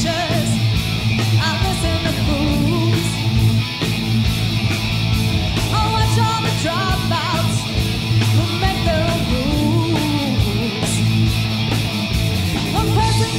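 Live hard rock band playing loudly: distorted electric guitars, bass guitar and drums, with a woman singing.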